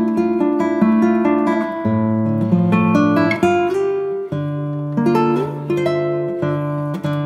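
Background music: a plucked acoustic guitar tune with a bass line in a steady rhythm.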